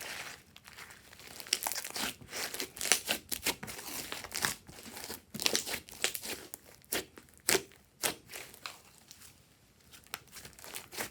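Glossy slime being squeezed and stretched by hand, making irregular sticky clicks and pops, with a quieter stretch near the end.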